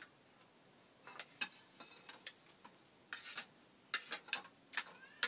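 Spoon scraping and clinking against a plate and bowl while scooping rice: a string of short scrapes and clicks, the sharpest about four seconds in.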